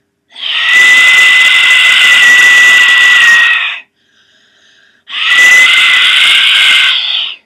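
A woman's vocal imitation of a banshee wail: two long, loud, high-pitched screams held at a steady pitch, the first about three and a half seconds long, the second about two and a half, with a short pause between.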